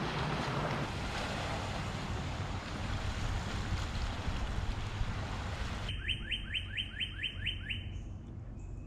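Wind and water noise over a low rumble. It is cut off abruptly about six seconds in by a quieter background and a bird's quick series of about eight sharply falling chirps, roughly four a second.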